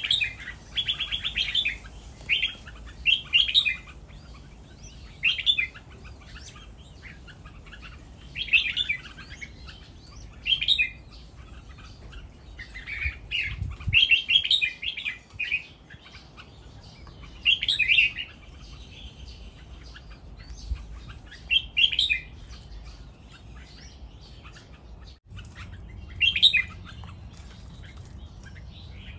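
Caged red-whiskered bulbuls singing: about a dozen short whistled phrases, one every one to three seconds, with the loudest runs about 14 s in and near the end.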